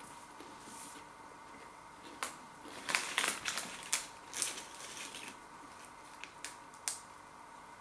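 A person chewing crunchy bacon and barbecue flavoured snack bites close to the microphone: a run of sharp crunches, thickest in the middle and tapering off toward the end.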